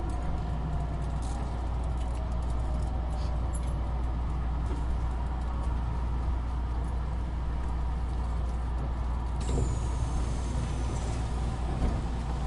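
Keisei electric commuter train running, heard from inside the carriage as a steady low rumble. Nine or ten seconds in, a burst of louder noise comes with a faint, falling high whine.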